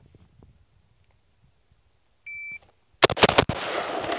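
A shot timer gives one steady high beep about a third of a second long. About half a second later an Anderson-built AR-15 fires a fast string of shots, with echo trailing after them.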